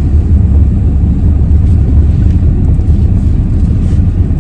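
Inside a moving car: a steady low rumble of engine and road noise, with no sharp events.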